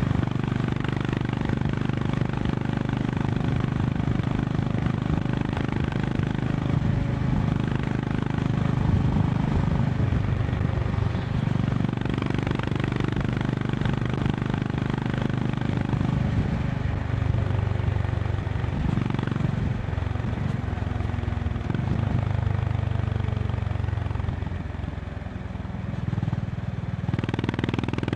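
Honda CB350 RS's air-cooled single-cylinder engine running at highway cruising speed, heard from the rider's seat with wind noise over it. The engine note eases off briefly near the end, then picks up again.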